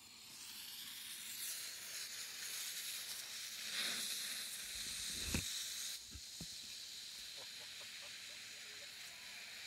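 Smoke bomb hissing steadily as it burns and pours out thick green smoke. It is louder until about six seconds in, then settles to a quieter, even hiss. A dull thump comes a little after five seconds in.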